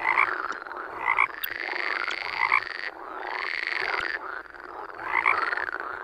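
Water frog croaking, a run of repeated rasping calls at roughly one a second.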